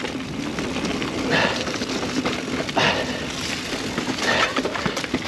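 Mountain bike rolling along a leaf-covered dirt forest trail: steady tyre and trail noise with dry leaves crunching, and a few louder rattles over bumps, about one every second and a half.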